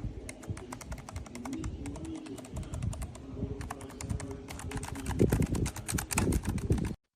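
Typing on a Keychron low-profile mechanical keyboard: a fast run of key clicks that grows louder and denser in the second half, then stops abruptly.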